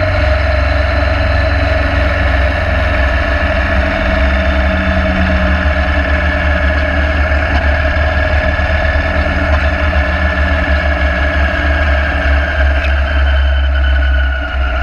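Motorcycle engine running at a steady cruise, with wind rumbling on the microphone; the engine note sinks a little near the end as the throttle eases.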